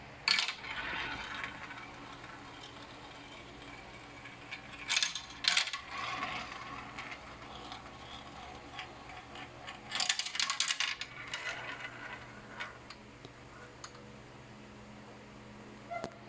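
Marbles rolling and clacking through a marble run track. There are sharp clacks about a third of a second in, a pair around five seconds, and a rapid cluster around ten seconds, with rolling and ringing between them.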